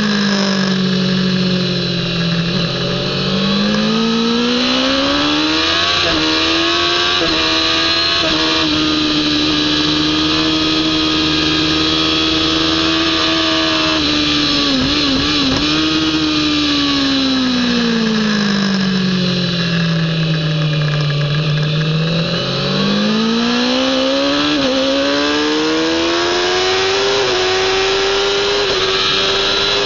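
Kawasaki ZX-10R inline-four sportbike engine at racing speed, heard from onboard over wind rush. Its note drops briefly as the bike slows, then climbs with quick upshifts and holds high. About halfway through it falls away again under braking and downshifts, and near the end it climbs again through further upshifts.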